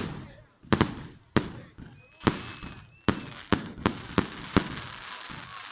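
Fireworks going off: an irregular run of about a dozen sharp bangs, some in quick pairs, each ringing out briefly, with a faint whistle and a crackling hiss between them in the second half.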